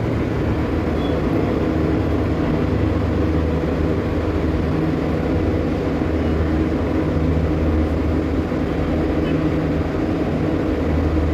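Steady low drone of running HVAC plant machinery, a hum of several steady tones over an even whir that does not change.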